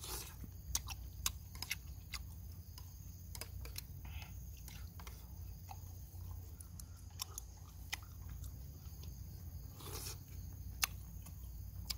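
A person chewing cooked octopus at close range, with many small sharp clicks and wet smacks from the mouth.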